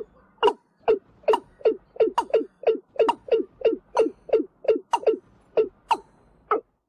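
A rapid series of short animal calls, each a quick falling note, about three a second, bunching closer together in the middle.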